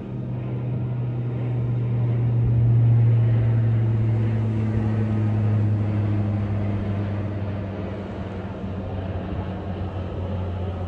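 Low, steady engine drone passing by: it swells to its loudest about three seconds in, then slowly fades as its pitch drops slightly.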